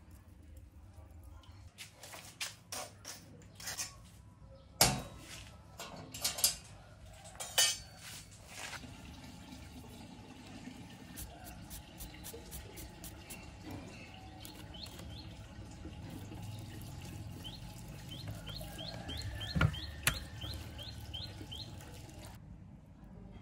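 Clinks and knocks of a stainless steel plate, bowl and utensils being handled on a wooden table, in a cluster of sharp taps over the first several seconds and one more near the end. Behind them is a repeated short high chirping over several seconds.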